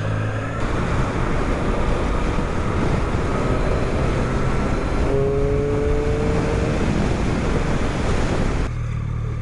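Motorcycle riding at speed with wind noise on the microphone. The bike is a Triumph Street Triple 660 S, and its three-cylinder engine drones steadily underneath the rush. A faint rising tone comes in about five seconds in.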